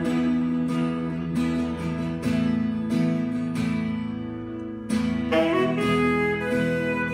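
Worship band music: a strummed guitar over held chords, with a saxophone coming in about five seconds in with a rising phrase.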